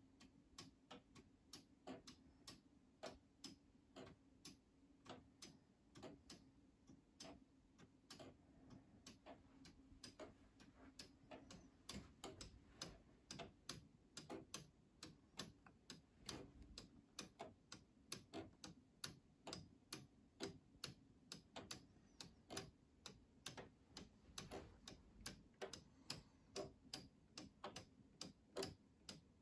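Two 3D-printed mechanical wall clocks ticking, their escapements beating out of step so the clicks fall unevenly, over a faint steady low hum. The ticks grow louder from about ten seconds in.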